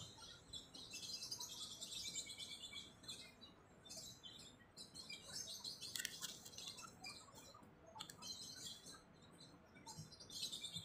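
Faint chirping and tweeting of small birds, with a few sharp crinkles from a plastic bag being handled.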